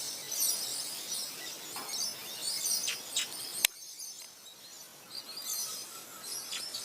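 Wild parrots chattering in scattered high-pitched chirps, with a sharp click a little after three and a half seconds in.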